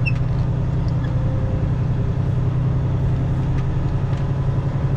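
Peterbilt 579 semi-truck driving slowly, its diesel engine a steady low drone inside the cab.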